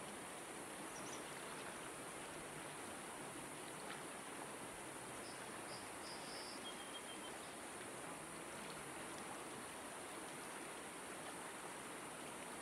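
Steady rush of a shallow mountain trout river flowing over stones, with a few faint high chirps about five to seven seconds in.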